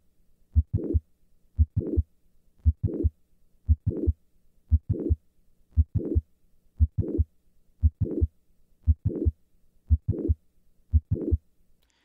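Heart sounds of mitral valve prolapse heard through a stethoscope at the cardiac apex: a steady heartbeat at about one beat a second, each beat carrying a mid-systolic click followed by a late systolic murmur.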